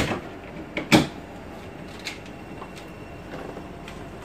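A sharp knock at the very start and a louder knock about a second in, with a few faint clicks later, over steady background noise.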